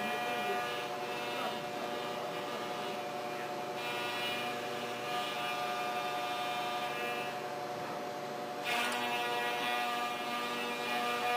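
Milling machine's end mill cutting solid aluminium: a steady whine made of several held tones, with a harsher, brighter cutting noise coming in briefly about four seconds in and again, a little louder, from about nine seconds on.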